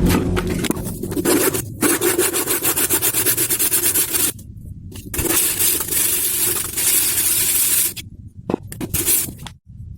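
Rapid, repeated scraping and rubbing strokes in runs of a few seconds, with short breaks about two seconds in, about halfway and near the end.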